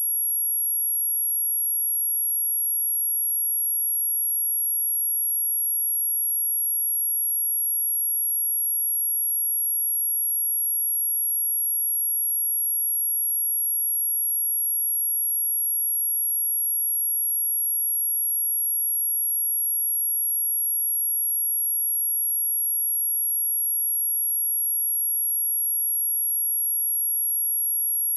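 A single steady high-pitched sine-wave test tone at 11283 Hz, held at one pitch and one level without a break.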